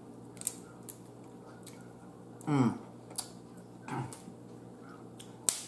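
Snow crab legs being handled and pulled apart by hand: a few sharp clicks of shell, the loudest near the end. Two short murmured "mm" sounds from the eater, about two and a half seconds in and again about four seconds in.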